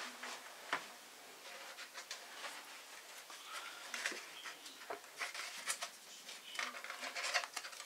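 Light handling noise: scattered soft clicks and rustles of foam board pieces being picked up and handled.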